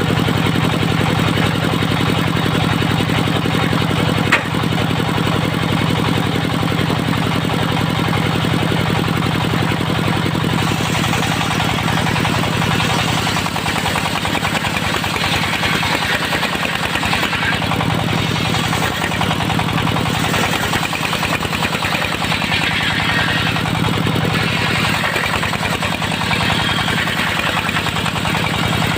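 Engine of a portable circular-saw sawmill running steadily, with a single sharp knock about four seconds in.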